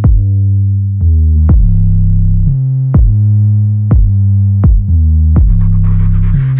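Electronic background music with a heavy synthesizer bass line and a drum-machine beat of about one kick a second.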